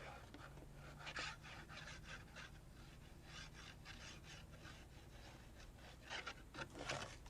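Faint, irregular rustling and rubbing of paper being handled and pressed down by hand as it is glued into a journal, over a low steady hum.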